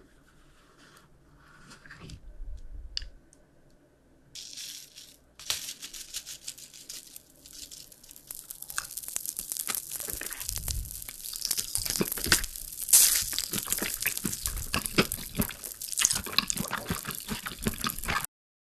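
Close-miked candy ASMR: dense, sharp crackling and crinkling that builds in loudness from about five seconds in, then cuts off suddenly near the end.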